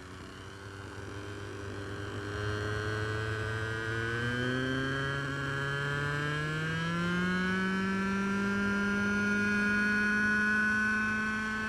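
Small glow-fuel engine of an RC model helicopter spooling up together with its rotor: the pitch rises steadily and the sound gets louder over the first seven or eight seconds, then holds at a steady pitch as the helicopter lifts off into a hover.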